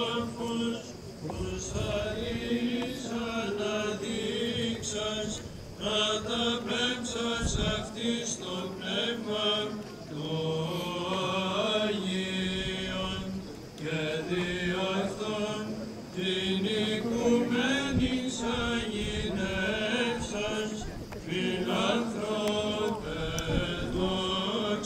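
Greek Orthodox liturgical chanting by a man's voice, in long ornamented phrases with short breaks, during the religious rite before the oath.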